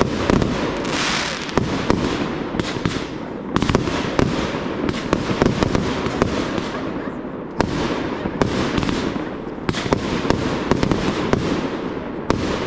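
Professional aerial fireworks display: dozens of sharp bangs from shells launching and bursting, many only a fraction of a second apart, over a continuous hiss that never lets up.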